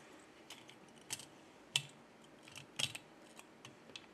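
Light, irregular clicks and taps of a phone circuit board being handled and set into a PCB holder clamp, about eight in all. The sharpest come nearly two seconds in and just under three seconds in.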